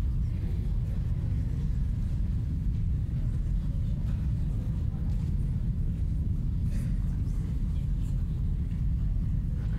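Low, steady rumble of a nuclear test explosion on archival film footage, with no sharp blast onset.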